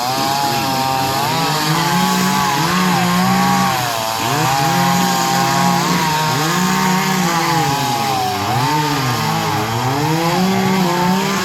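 Echo CS400 two-stroke chainsaw running and cutting palm wood. Its engine pitch rises and falls under load, dropping lower about four seconds in and again near nine seconds.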